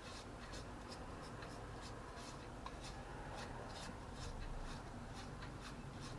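A basting brush dabbing and stroking over hasselback potatoes: a string of soft, short brushing strokes at an uneven pace.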